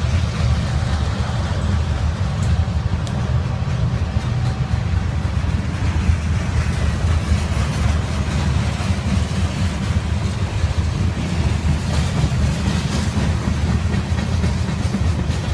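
Freight train's covered hopper cars and a tank car rolling past at close range: a steady, loud, low noise of steel wheels running on the rails.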